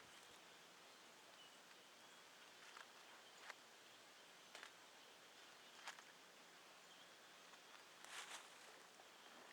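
Near silence: faint outdoor background with a few soft scattered clicks.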